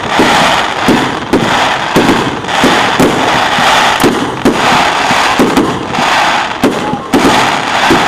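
Fireworks display going off: a rapid, irregular run of bangs, about two a second, over a continuous hiss that swells and fades.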